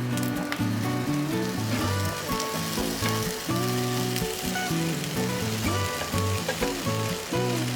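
Food sizzling in oil in a frying pan, with background music playing over it.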